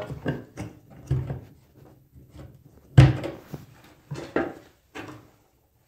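A flat metal tool prying and chipping at a cut-through old bathtub drain, breaking it out of the tub: a run of irregular knocks and scrapes, the loudest about three seconds in.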